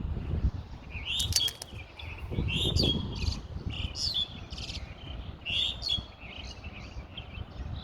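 Small birds chirping and twittering in quick, repeated calls, over a low rumble of wind on the microphone.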